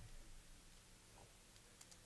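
Near silence, with a soft click at the start and a couple of faint ticks later from trading cards being handled.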